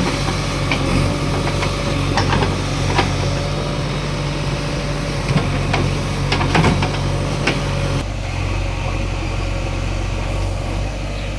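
Diesel engine of a JCB 3DX backhoe loader running steadily, with several sharp knocks in the first eight seconds. About eight seconds in the engine note changes and eases slightly.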